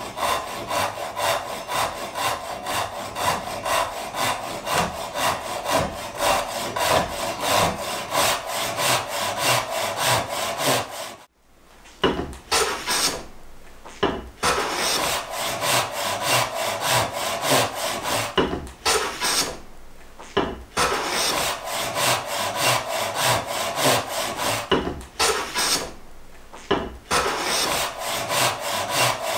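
A Japanese ryoba pull saw cutting through a wooden board by hand, in quick, even strokes of about three a second. About 11 s in the sawing stops suddenly. It gives way to groups of scraping hand-tool strokes with short pauses between them while the blank is cleaned up, and steady sawing comes back near the end.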